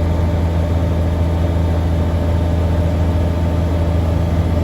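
Heavy harvest machinery's engine running at a steady drone, an even low hum with no change in pitch.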